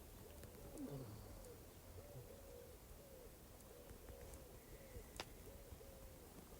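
Faint, soft hooting calls of a bird, short arched notes repeated about twice a second, with a faint click about five seconds in.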